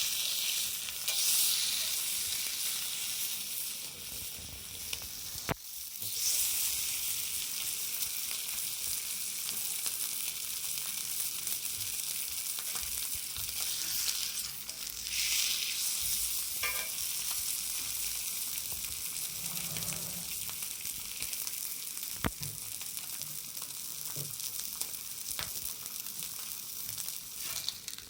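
Sirloin steak sizzling on a thick steel griddle plate: a steady frying hiss, with a couple of sharp clicks.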